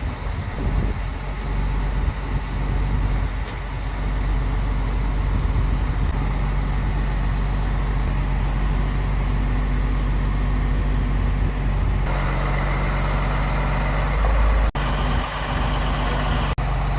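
Truck engine running steadily under load, with a louder rushing noise joining about twelve seconds in; the sound cuts out very briefly twice near the end.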